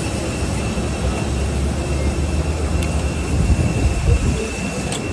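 Jet airliner engine noise on the airport apron: a steady high whine over a continuous rumble.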